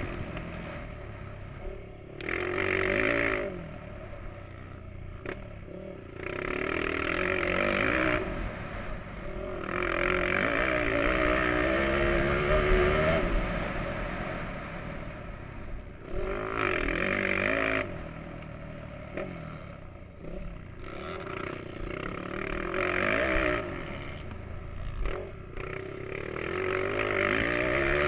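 Motocross dirt bike engine heard up close, revving hard in repeated surges as the throttle is opened and closed. The pitch climbs on each surge, and there are about six loud surges a few seconds apart with quieter stretches between them.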